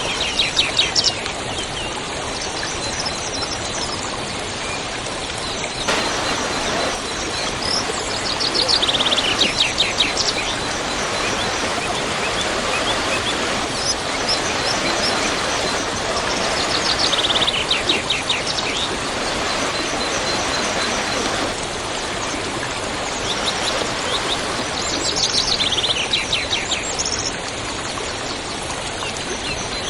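Waterfall rushing steadily, with a songbird singing a quick run of notes that falls in pitch, four times over.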